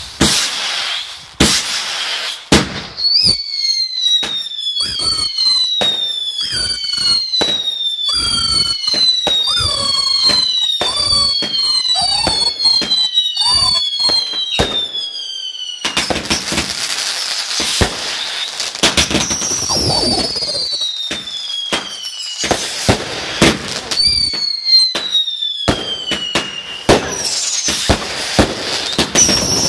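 Fireworks firing in quick succession: a string of whistling shots, each whistle falling in pitch, over sharp bangs and crackling. About halfway through, the whistles give way to several seconds of dense crackle, then more whistles follow.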